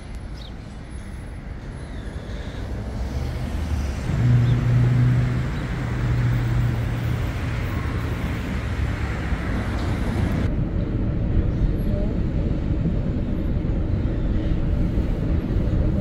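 Urban road traffic: motor vehicles running past, with one engine's low hum growing louder about four seconds in. The higher rushing noise cuts off suddenly about ten seconds in, leaving a steady low rumble.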